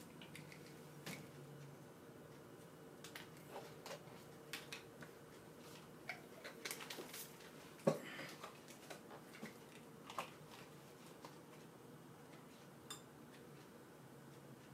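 Quiet room with scattered small clicks and light knocks of small objects being handled, one sharper knock about eight seconds in.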